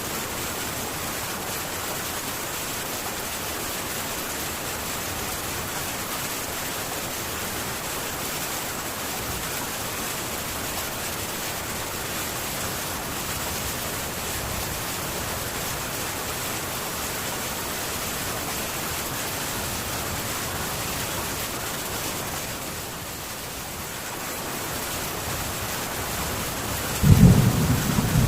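Heavy rain falling on a metal tin roof, a steady even hiss that eases a little about three-quarters of the way through. Near the end a loud low rumble of thunder breaks in.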